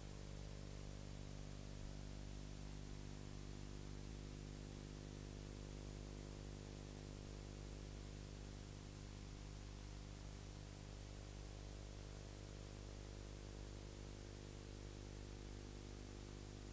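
Steady faint hiss with a low electrical hum underneath, from a VHS videotape playing a blank stretch.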